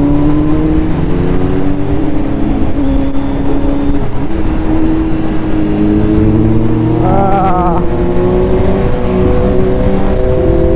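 Kawasaki Z900's inline-four engine running through a Mivv carbon full-system exhaust while riding. The engine note climbs slowly and shifts pitch in steps, as with throttle and gear changes.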